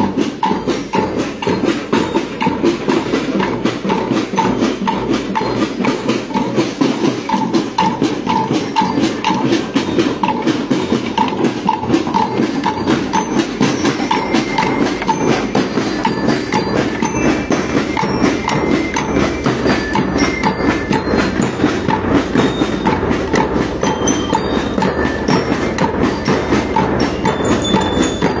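Marching band drums, snares and bass drums, beating a steady march rhythm, with a sharp knock marking the beat about twice a second. From about halfway, bell lyres add bright ringing notes over the drums.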